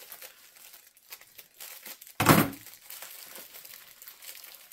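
Plastic mailer bag crinkling as it is cut and pulled open, with one loud tear about two seconds in.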